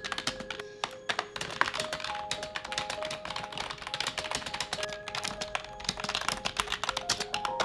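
Fast typing on a computer keyboard: a dense, uneven run of key clicks. Soft background music with long held notes plays underneath.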